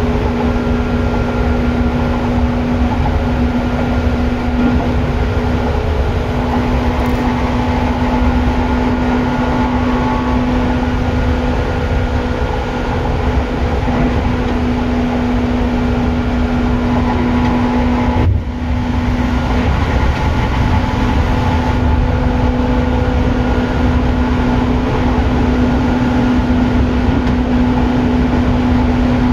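Seibu 2000 series electric train set 2057F running at speed: a loud, steady rumble of the running gear with a constant humming tone over it. The tone breaks off for a moment about 18 seconds in, then carries on.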